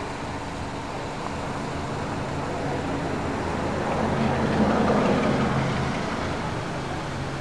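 A road vehicle passing, its steady low hum swelling to a peak about halfway through and then fading away.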